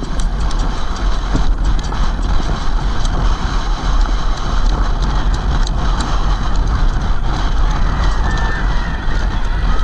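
Wind buffeting the microphone of a camera mounted on a galloping racehorse's head: a loud, steady rushing rumble, with the horse's hoofbeats on the dirt track underneath.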